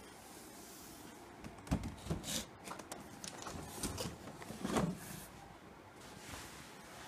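Handling noise around a cardboard keyboard box: a few soft knocks and scraping, rubbing sounds, the loudest about two-thirds of the way through.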